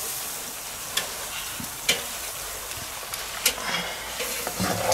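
Mixed vegetables in broth sizzling in a cast-iron pan over charcoal, with a steady hiss. A wooden spatula stirs them, giving a few sharp knocks and scrapes against the pan.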